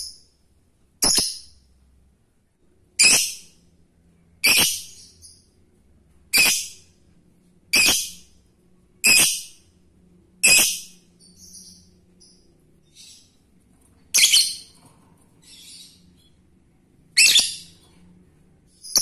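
Male Fischer's lovebird giving short, high-pitched calls, about ten of them one every second or two, with a few fainter calls in between: a male calling for a female.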